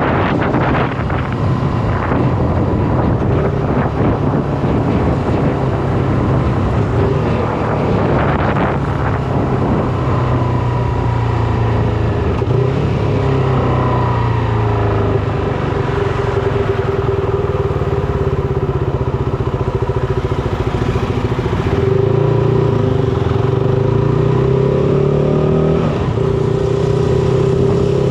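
Shineray SBM 250S motorcycle engine running while riding, its pitch sinking and climbing again with the throttle, over wind rush.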